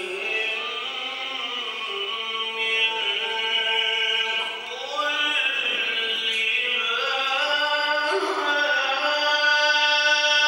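A male Quran reciter chanting in the ornate mujawwad style into a microphone, drawing out long held notes with melismatic turns and pitch glides between them.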